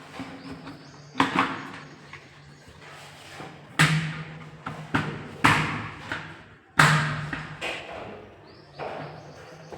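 Hard knocks and thuds from plumbing fixture fitting work: four loud strikes a second or two apart, each dying away, with smaller knocks and handling noise between them.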